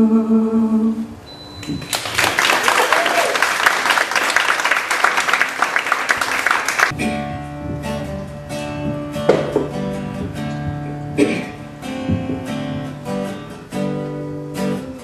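A held sung note ending, then audience applause for about five seconds, then an acoustic guitar picking out single notes and chords as the next song's intro.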